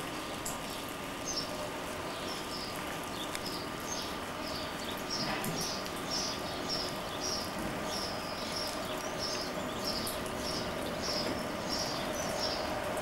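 A bird chirping over and over, about two short calls a second, over the steady hum of an approaching Class 60 diesel freight locomotive, whose engine tone grows louder near the end.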